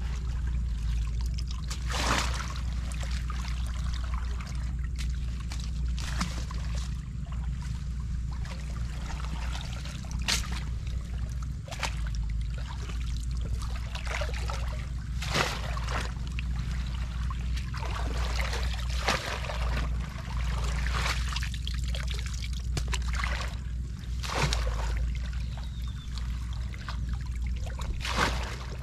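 Water trickling and splashing, with many short, sharp splashes or drips scattered through it, over a steady low rumble.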